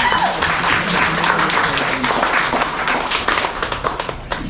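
Audience applauding: many overlapping hand claps that thin out near the end.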